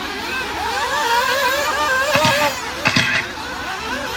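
Several nitro RC buggy engines racing, their pitches rising and falling as they rev through the laps. Two sharp knocks come about two and three seconds in.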